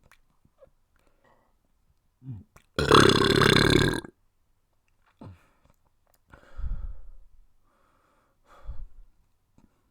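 A person burping: one long, loud burp of just over a second, about three seconds in, with a short softer sound just before it and a few quieter, shorter sounds after it.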